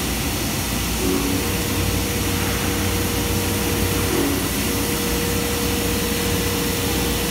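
NV5000 vertical machining center running: spindle turning and coolant spraying as a drill cuts a bolt hole in bent metal, a loud steady noise with a low hum. A steady whine runs through it and breaks off briefly about four seconds in.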